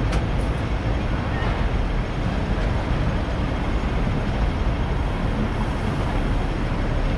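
Steady low rumble of city traffic and the tram itself, heard from on board a Hong Kong double-decker tram standing at a busy junction, with a few faint clicks near the start.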